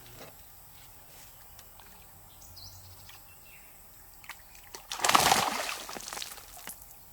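A loud splash of water about five seconds in, fading out over a second or so. It follows faint clicks and handling noises.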